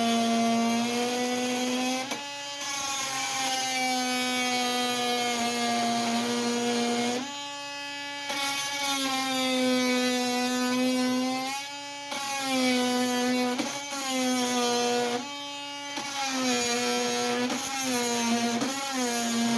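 Oscillating multi-tool with a Diablo carbide blade cutting through steel screws and nails: a steady, buzzy hum whose pitch sags as the blade bites and picks back up. It changes abruptly every few seconds as the blade breaks through or is repositioned.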